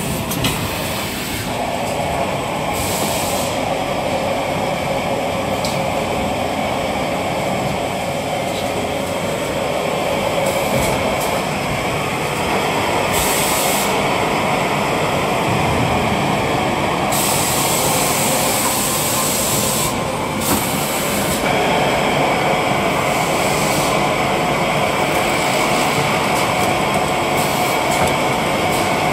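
Automatic glue-lamination toilet paper and kitchen towel production line running: a steady, loud machine noise, with a high hiss that comes in several times for a second or more.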